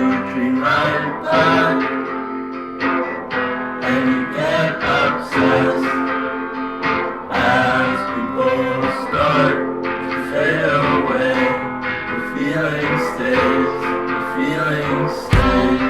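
Music: a guitar-led song with a gliding melody line, and a heavy low beat coming in near the end.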